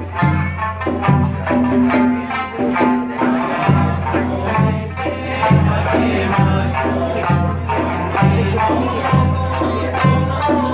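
An Okinawan sanshin ensemble playing a folk tune together: many plucked three-string lutes over a steady, regular beat.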